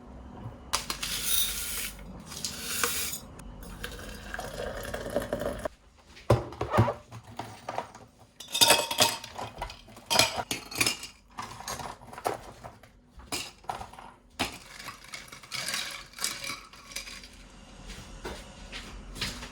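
Kitchen clatter: dishes and cutlery clinking and knocking against each other, many separate strikes, with a few hissing stretches in the first few seconds.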